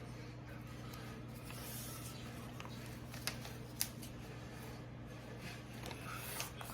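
A sheet of paper being handled and folded: soft rustling, with two sharp crisp snaps about half a second apart midway through, over a steady low hum.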